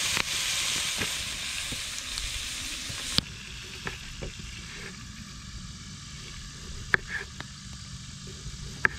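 Bacon sizzling in a hot cast iron Dutch oven, a loud even sizzle that cuts off abruptly about three seconds in. Then a knife slices potatoes on a wooden cutting board, with a few sharp taps of the blade on the board.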